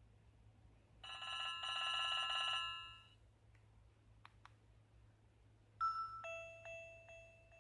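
Nokia 130 mobile phone ringtones: a trilling telephone-bell ring that lasts about two seconds, two quick clicks, then a different chiming ringtone of held melodic notes starts near the end.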